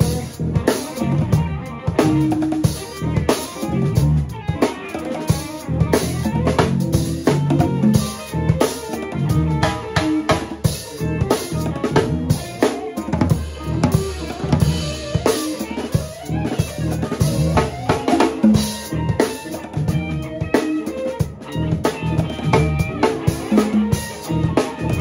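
Live improvised funk band playing: a busy drum-kit groove of kick and snare over a bass guitar line and guitar, the drums loudest.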